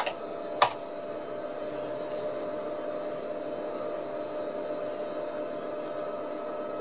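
Two keyboard key clicks, the second about half a second after the first, as the login is entered. After them the Amstrad PC2086 runs on with a steady whir from its cooling fan and spinning hard disk.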